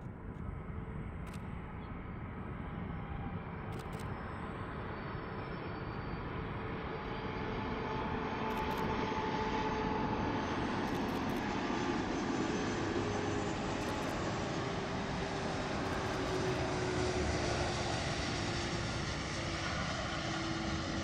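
Aircraft engines growing louder over several seconds and then holding steady: a broad rush with a whine that slowly drops in pitch as the plane passes.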